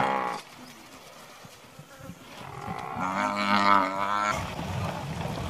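African (Cape) buffalo bawling: a short call at the start, then a longer, louder wavering call about three seconds in, during a lion attack on the herd.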